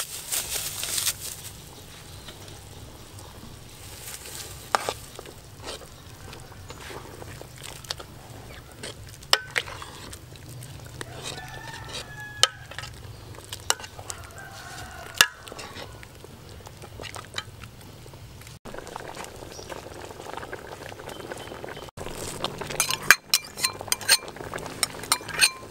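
Soup boiling in a large aluminium pot while a metal ladle stirs it, knocking against the pot now and then. Near the end comes a quick run of clicks and crackles.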